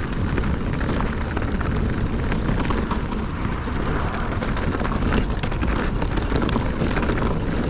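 Wind rushing over the microphone and the tyres of a Specialized Stumpjumper mountain bike rolling over a dirt trail, with scattered clicks and rattles from the bike.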